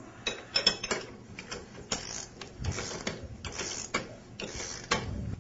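Socket ratchet wrench clicking in short runs of strokes as it runs the tie-rod nuts of a waterjet intensifier down snug against the end bells, before they are torqued.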